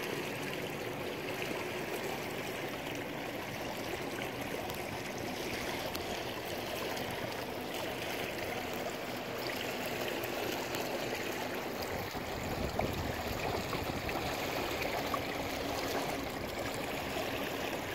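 Water rushing and lapping steadily along the hull of a small sailboat under way, with wind rumbling on the microphone about twelve seconds in.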